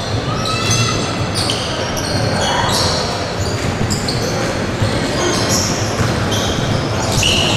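Live basketball play: sneakers squeak on the court in many short, high-pitched chirps, and the ball bounces, over a steady din of crowd and hall noise.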